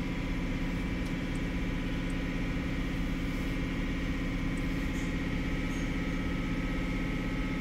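Steady low mechanical hum that holds unchanged, with an even drone and no rise or fall.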